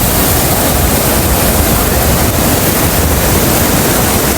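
Ocean surf washing in steadily, with wind buffeting the microphone in a low rumble.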